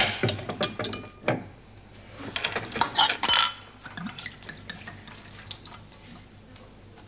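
Glass and a wine bottle knocking and clinking on a worktop, with wine poured into a glass about two and a half to three and a half seconds in, then a few lighter taps.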